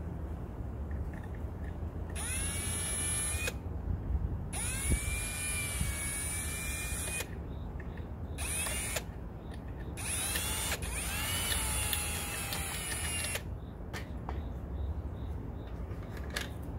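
Electric drill spinning up with a rising whine and running in several short bursts, stopping in between, as holes are drilled in the knife's handle pieces.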